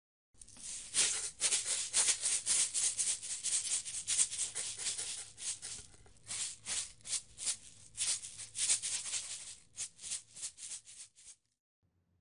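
Dry granular rattling in quick, uneven bursts, like a shaker, as a powder or crystals are shaken into a tub of water; it stops shortly before the end.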